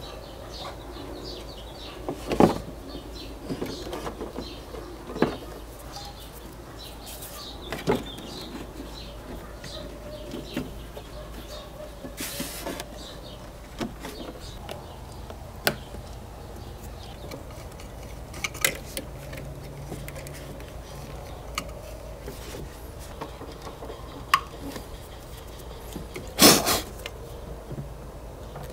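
Scattered clicks, taps and knocks of car parts and tools being handled during engine-bay work, over a steady low hum. A brief hiss comes about twelve seconds in, and the loudest knock comes near the end.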